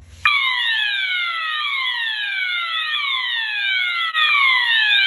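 Fire alarm horns start together a fraction of a second in: a System Sensor MASS on its swept-frequency tone, sweeping downward over and over, with a second device sounding a siren tone. The sound gets louder about four seconds in.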